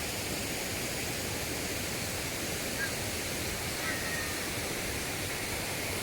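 Steady rush of water from a mountain waterfall. A couple of faint, short, high chirps come about three and four seconds in.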